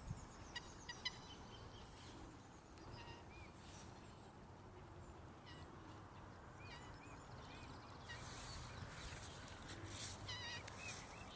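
Small birds calling: scattered short chirps, some in quick trills, over a steady background hiss, with a few sharp clicks in the first second.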